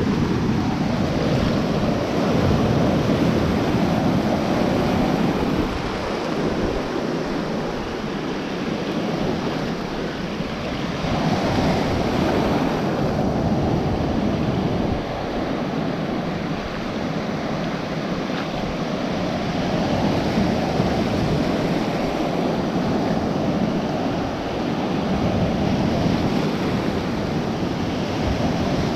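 Ocean surf washing through the shallows, swelling and ebbing every several seconds, with wind on the microphone.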